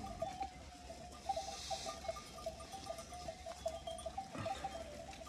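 Bells on grazing livestock, likely goats or sheep, clinking irregularly. Many short ringing notes near one pitch sound over a faint low rumble.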